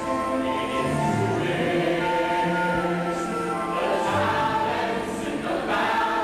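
Stage musical number: a chorus of cast voices singing held notes together over musical accompaniment, with an echoey sound.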